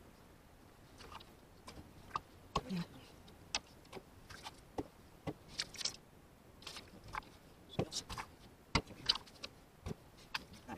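A string of irregular light clicks and clinks from small hard objects being handled by hand, starting about a second in, with the loudest clicks near the end.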